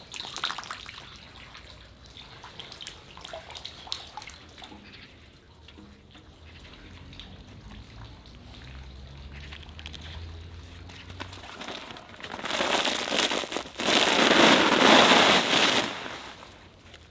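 A large plastic sheet rustling and crackling loudly as it is handled and shaken out over a table, for about three or four seconds near the end. Before that, only faint scattered clicks and ticks.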